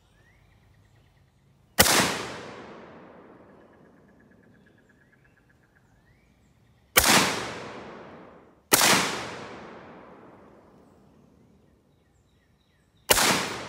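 Four single shots from an M16A2-pattern rifle, each a sharp crack followed by an echo that dies away over a couple of seconds. The first comes about two seconds in, the middle two under two seconds apart, and the last near the end.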